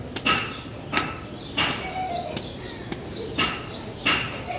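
A heavy curved chopping knife striking a palmyra palm fruit held in the hand, cutting away its tough husk. About six sharp chops come unevenly, half a second to a second apart, several with a brief ringing tone.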